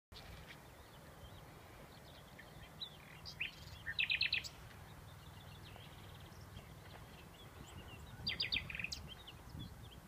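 Common nightingale singing two short song phrases, one about four seconds in and another near the end, each ending in a quick run of loud repeated high notes. A low steady rumble runs underneath.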